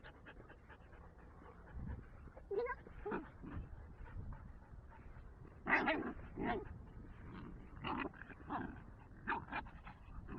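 Dogs vocalizing during rough play-fighting: short, scattered high-pitched calls, the loudest bunch a little past halfway.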